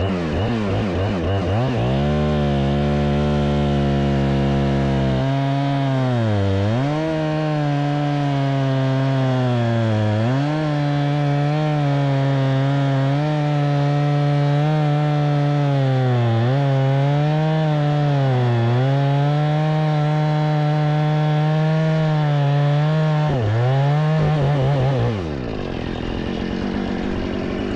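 Jonsered chainsaw revving up and cutting through a cherry log at full throttle, its pitch dipping sharply several times as the chain bogs down in the wood. About 25 seconds in the revs drop back toward idle.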